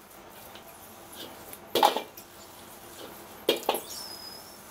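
A metal ladle knocking and scraping in a dry iron wok as mushrooms are stir-fried without oil, with sharp clanks about a second and a half in and again near three and a half seconds. Near the end comes a short high squeak, the kind of squeak said to come as the mushrooms' moisture cooks out.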